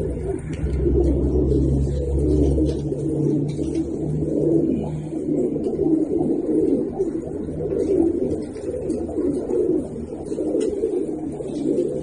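A flock of Iranian fancy pigeons cooing continuously, many birds calling over one another in a dense chorus. A low steady hum sits underneath for the first few seconds and then fades.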